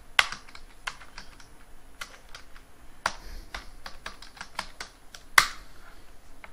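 Computer keyboard keys clicking in an irregular run of keystrokes as a command is typed, with one louder keystroke about five seconds in.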